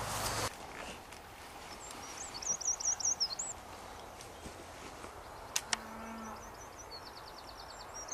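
A small songbird singing quick runs of high, warbling repeated notes, a couple of seconds in and again near the end, over a quiet outdoor background. Two sharp clicks sound a little past the middle.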